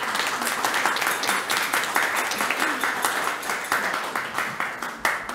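Audience applauding, many hands clapping at once, which dies away sharply near the end.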